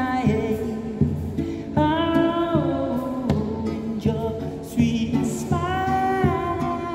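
A man singing to his own strummed classical guitar, holding some notes long, with chords struck about once a second.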